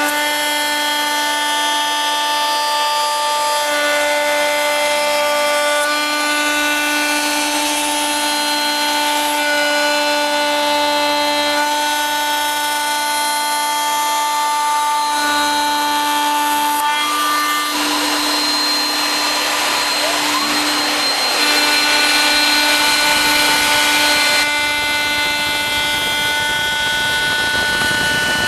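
Home-made CNC router milling a wooden board: a steady whine made of several tones that shift in steps every few seconds, with a harsher cutting hiss joining in about two-thirds of the way through, loudest for a few seconds, before easing back.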